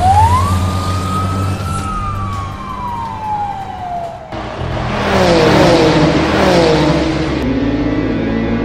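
Dubbed siren sound effect: one slow wail that rises, then falls and cuts off abruptly about four seconds in. A revving car engine sound effect follows, its pitch sweeping down several times over a rushing hiss, and it settles into a low engine hum near the end.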